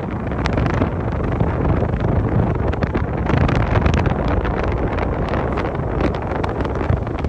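Wind buffeting the microphone on the open deck of a ferry under way, gusting irregularly over a steady low rumble.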